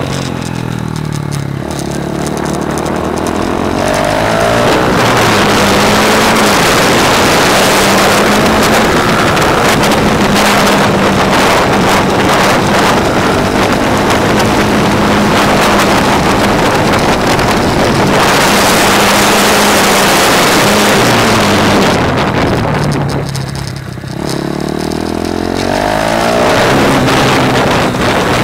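KTM Duke single-cylinder motorcycle engine on a track lap, with heavy wind rush. The revs fall at the start as the bike slows for a corner, then it pulls hard and holds high revs. It drops again a little after twenty seconds for the next bend and climbs as it accelerates out near the end.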